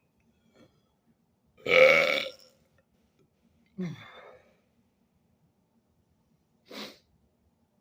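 A man's deliberate burp, long and loud, about two seconds in. About two seconds later comes a shorter, weaker sound falling in pitch, and near the end a brief breathy puff.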